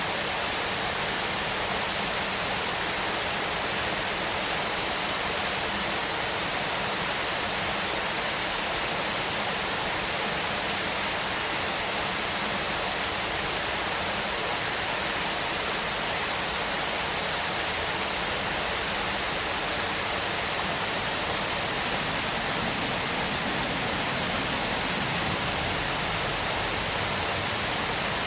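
Waterfall: a steady rush of falling water, even and unbroken, with most of its energy in the hiss rather than the low rumble.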